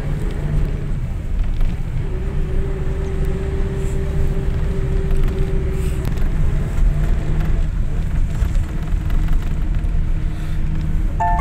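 Engine and road noise of a passenger vehicle heard from inside its cabin: a steady low rumble, with a thin steady whine over it for about four seconds starting two seconds in.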